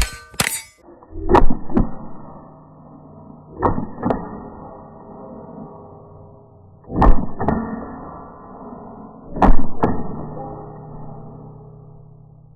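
Rimfire rifle shots at steel plates, roughly a few seconds apart, with each hit answered by the steel plate ringing out and fading.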